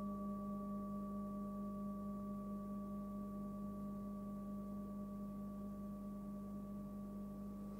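Forged singing bowl, 19 cm and tuned near 199 Hz (G), ringing on with a steady low hum and fainter higher overtones, slowly fading.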